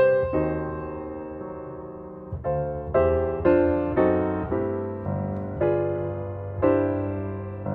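Background piano music: slow chords and melody notes struck and left to ring.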